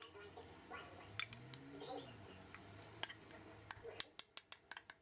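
A utensil clinking and scraping against a bowl as salad is scooped out onto a tortilla. It is faint at first, then a quick run of sharp clinks comes in the last two seconds.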